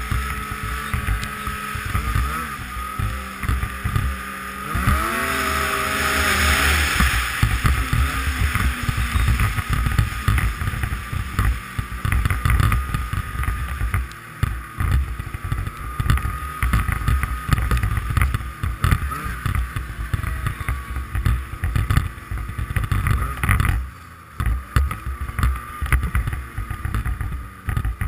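Yamaha Nitro snowmobile's four-stroke three-cylinder engine running under throttle while riding, revving up about five seconds in and easing off briefly near the end, with a steady high whine and wind buffeting the microphone.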